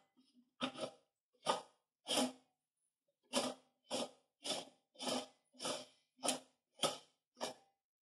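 Manual tire changer's steel center post and sleeve being worked by hand: about a dozen short metal-on-metal scraping strokes, coming faster and more evenly, about two a second, from the middle on, as the duckbill assembly is fitted onto the post.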